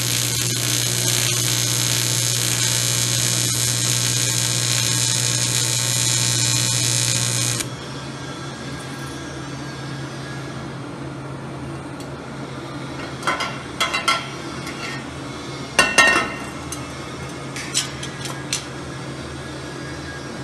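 TIG welding arc buzzing steadily on an aluminium intercooler pipe, from a Lincoln Square Wave TIG 175 welder, then cutting off suddenly about seven and a half seconds in. Later come a few light metal clinks as the welded pipe is handled.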